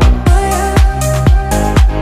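Electronic dance music with a steady four-on-the-floor kick drum, about two beats a second, under a synth melody.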